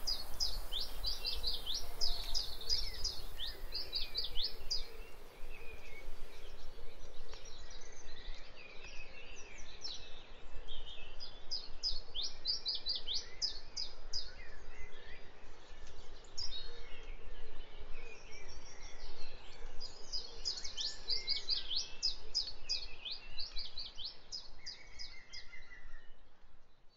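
Spring woodland birdsong: a songbird sings a long, rapid phrase of quick high notes three times, about ten seconds apart, while other birds chirp more faintly. Under it runs a low steady rumble.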